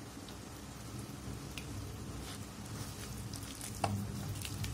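Hand squishing and kneading chicken pieces through a wet batter of egg, flour and spices in a bowl: faint squelching with scattered small clicks and one sharper click near the end.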